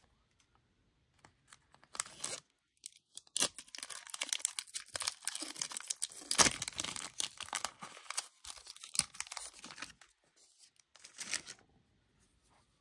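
A trading card pack's clear plastic wrapper being torn open and crinkled. The crackling comes thick from about three seconds in until about ten seconds in, with a short crinkle near the end.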